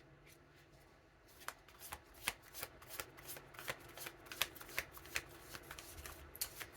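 A deck of tarot cards being shuffled by hand: a quick, irregular run of card snaps and riffles that starts about a second and a half in.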